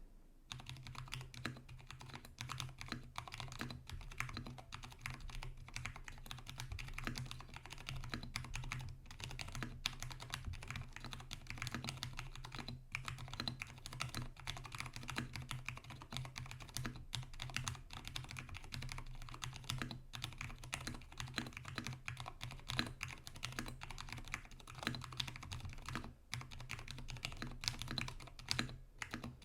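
Steady, fast typing on a Vortex Tab 60 mechanical keyboard with Cherry MX Brown tactile switches, lubed switches and stabilizers, and sound-dampening foam added inside the case.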